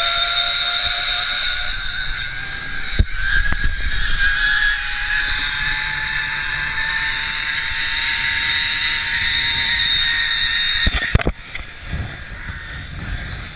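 Zip-line trolley pulleys running along the steel cable: a steady high whine that slowly rises in pitch as the rider picks up speed, over a low wind rumble, with a knock about three seconds in. Near the end a few sharp clattering knocks as the camera is dropped, and the whine cuts away.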